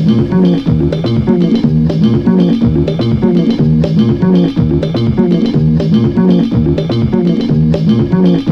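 Background music: an instrumental with guitar and bass notes in a steady, repeating pattern.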